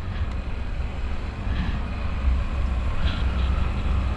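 Yamaha Mio 125 motor scooter riding along, its engine and road noise under a steady, gusting low rumble of wind on the helmet-camera microphone.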